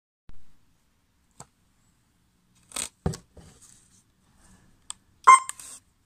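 Buttons of a handheld wireless siren remote control clicking and the plastic unit being handled: a few separate short clicks and knocks, the loudest about five seconds in with a brief ringing edge.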